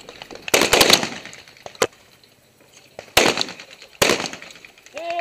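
Shotgun shots echoing: a quick cluster of blasts about half a second in, then single shots about three and four seconds in. A shouted range call comes at the very end.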